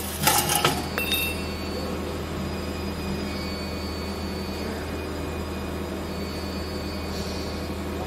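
Automatic mortise lock cylinder machine running with a steady low hum, with a quick cluster of metallic clinks in the first second.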